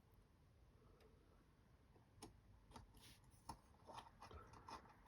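Faint scattered clicks and light taps, more frequent in the second half: small screws and a screwdriver being handled and fitted by hand into a quadcopter frame.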